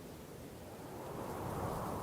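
Wind blowing in a steady rush, swelling into a stronger gust in the second half.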